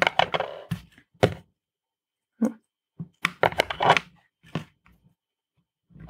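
Irregular sharp knocks and clicks as a small LED circuit board is handled and set down on a hard tabletop, strongest at the start, about a second in, and in a cluster three to four seconds in.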